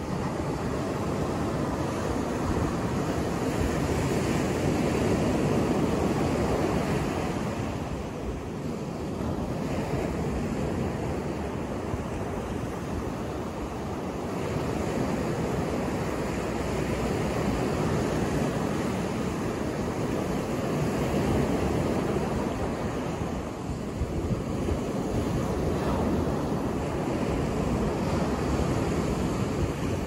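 Ocean surf breaking and washing up a sandy beach: a continuous rush of waves that swells and eases, dipping briefly a few times between breakers.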